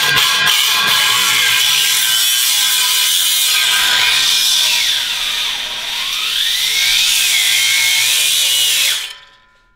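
Angle grinder cutting through a steel exhaust pipe: a loud high whine over gritty hiss, its pitch sagging under load and recovering twice in the second half, then cutting off about nine seconds in.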